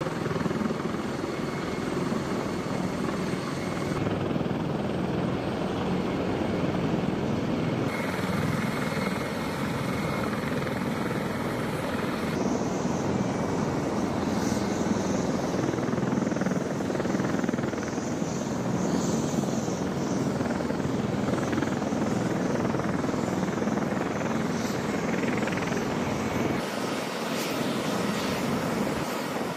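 MV-22B Osprey tiltrotor aircraft running on a flight line: a steady, dense noise of turbine engines and rotors. Its character shifts abruptly a few times.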